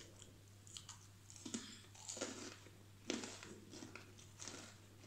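A person chewing a crunchy biscuit: irregular dry crunches, the loudest about three seconds in.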